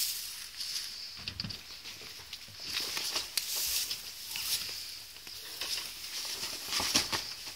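Tarpaulin truck cover and a load of straw rustling as the cover is pulled back and handled, with scattered small knocks and a sharper knock near the end.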